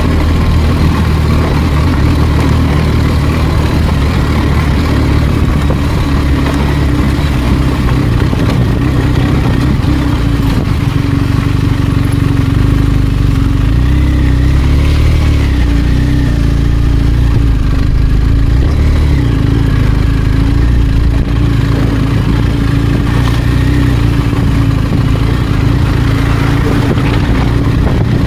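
BMW R1250GS motorcycle's boxer-twin engine running steadily while riding, the engine note shifting briefly about halfway through.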